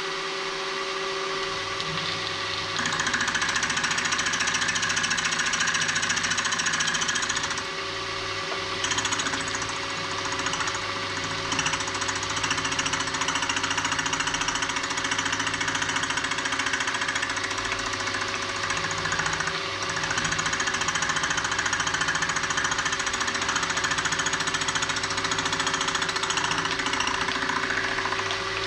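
Milling machine running with a steady motor hum while the cutter takes light passes across the end of a small metal engine cylinder held in a vice. The cutting noise starts about three seconds in and comes and goes, with short lulls about eight and twenty seconds in.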